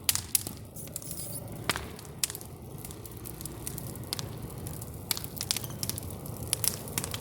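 Wood campfire crackling, with irregular sharp snaps and pops over a steady low rushing of the flames.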